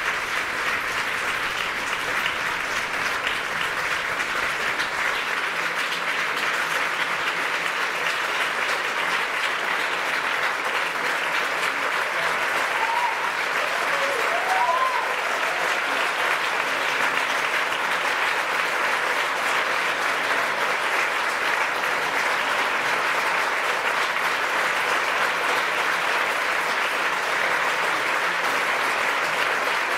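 A theatre audience applauding steadily. A few brief shouted calls rise out of the clapping about halfway through.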